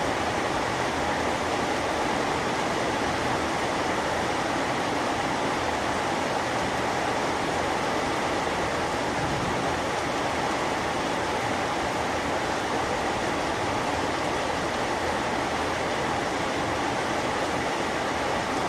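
Heavy rain falling steadily: a dense, even hiss that holds the same level throughout.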